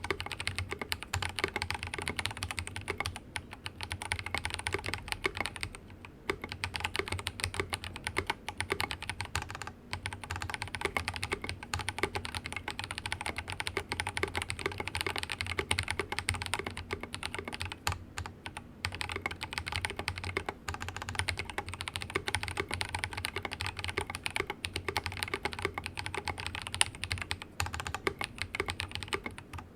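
Steady fast typing on a mechanical keyboard with tactile Drop Invyr Holy Panda switches, lightly lubed, under ABS keycaps on a silicone-mounted Rama Works Kara board. The key strokes run on in a dense clatter, with brief pauses around 6, 10 and 18 seconds in.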